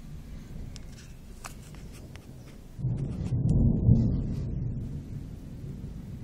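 Thunder rumbling: a low rumble starts suddenly about three seconds in, swells to its loudest a second later, then fades over the next two seconds. A few faint clicks come before it.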